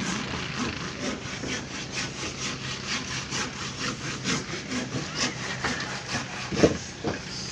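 Hand saw cutting timber in quick, even back-and-forth strokes, a repeating rasp of teeth through wood.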